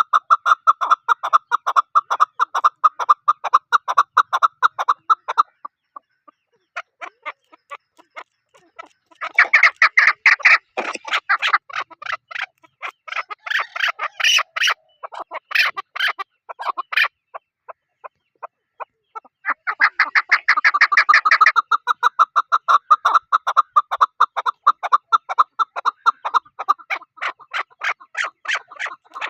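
A bird calling in long bouts of rapid, repeated notes, with short pauses between the bouts.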